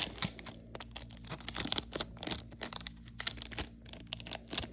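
Foil Pokémon booster pack wrapper crinkling and tearing as it is opened, in many quick irregular crackles.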